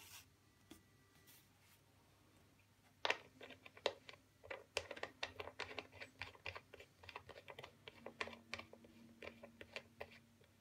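Quiet, rapid, irregular clicks and ticks of fingers handling a small metal vape atomizer deck as it is screwed onto the connector of a plastic coil-building box. They start about three seconds in and stop shortly before the end.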